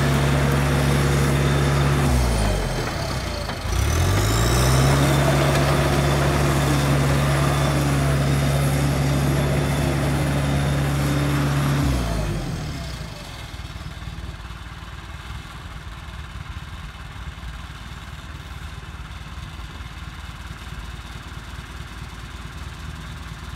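International Dresser TD8E crawler dozer's diesel engine running at high revs as the machine moves and turns. The revs dip about two seconds in and climb back, then about halfway through drop away to a quieter idle.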